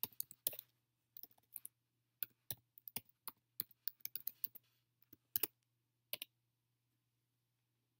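Irregular clicks and taps of typing on a computer keyboard, some in quick runs, stopping about six seconds in.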